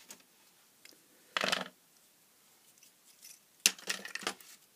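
A short scuff about a second and a half in, then a plastic marker pen clattering down onto a hard tabletop with a sharp click and a few quick smaller clicks.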